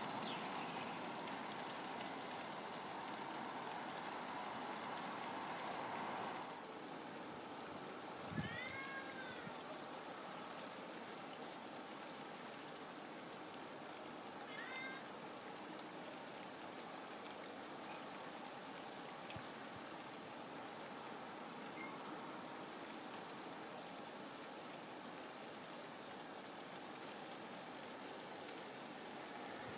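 Steady rain falling on a garden, a little louder for the first few seconds. A soft thud is followed by a brief run of bird calls about a third of the way in, with a shorter call later.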